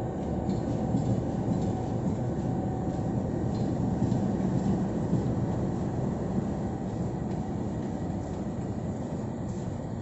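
GE U20C (Pakistan Railways GEU-20 class) diesel-electric locomotive running as it rolls slowly past, a steady low engine rumble.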